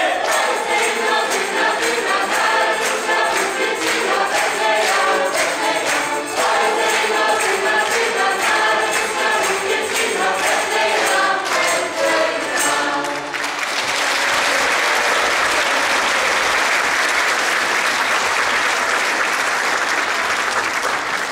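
Folk ensemble of men's and women's voices singing a Kurpie Christmas carol in chorus, with accordion and a regular percussion beat. The song stops about 13 seconds in and the audience breaks into steady applause.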